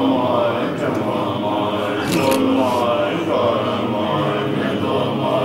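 Tibetan Buddhist monks chanting a liturgy together, many men's voices in a steady recitation.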